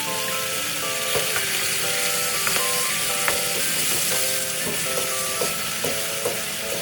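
Chicken sizzling in a frying pan as it is stirred, with scattered sharp clicks of the utensil against the pan. A light instrumental melody plays over it.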